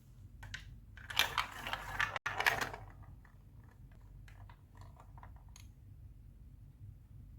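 Glass marbles clattering and rattling down a plastic Lego Duplo block track, a dense burst for about two seconds, followed by scattered lighter clicks as they roll on.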